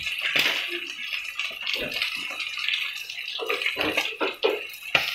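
Pieces of striploin steak frying in hot oil in a pan, sizzling steadily with many small crackles and pops of spattering fat.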